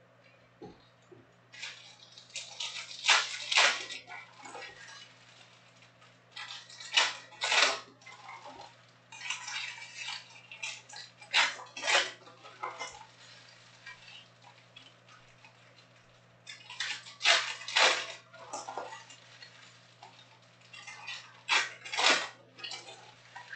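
Foil trading-card packs being handled and torn open, giving crinkly bursts of wrapper noise about every few seconds, over a steady low electrical hum.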